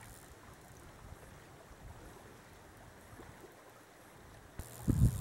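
Shallow river water running steadily. A brief, loud low rumble near the end.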